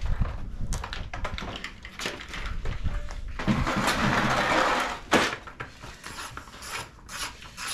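Hands working on a dirt bike: scattered knocks and clicks of parts being handled, a rustling stretch of about a second and a half a little before the middle, then one sharp click.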